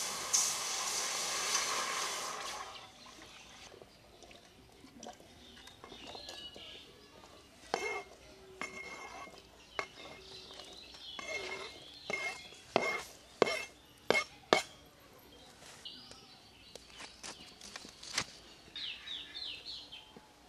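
A loud hiss for the first two seconds or so, then fading, followed by a metal utensil clinking and scraping against a cooking pot, with a run of sharp ringing clinks in the middle.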